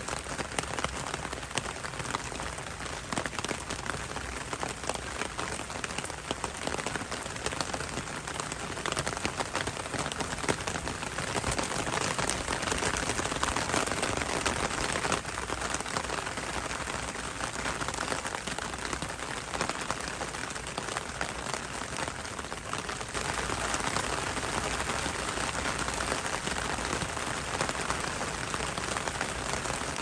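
Rain falling on an umbrella: a steady, dense patter of drops on the fabric. It grows heavier for a few seconds around the middle and again near the end.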